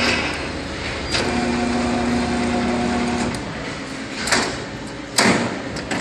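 Electric drive motor of a South Bend heavy-duty lathe humming as the spindle is run from the push-button station; it stops shortly after the start, a switch clicks about a second in, and it hums again for about two seconds before stopping. Two short swishes follow near the end.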